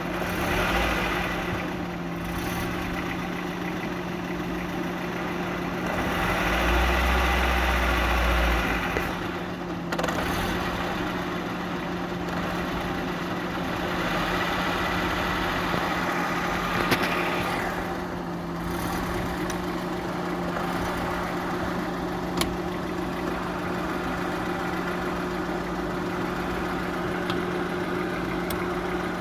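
Idling engine driving a freshly repaired manual gearbox, with the countershaft (layshaft) spinning as a steady mechanical hum and whir. The hum swells louder a few times, and there are a couple of sharp clicks.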